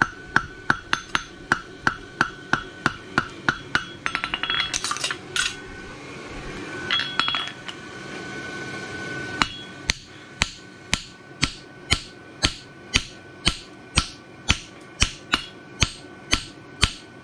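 Hand hammer striking a fuller into the branch of a hot steel horseshoe on an anvil, each blow with a ringing note from the steel. The blows come about three a second, then a quick flurry of lighter taps about four seconds in, a pause of a few seconds, and steady blows about two a second from about ten seconds in.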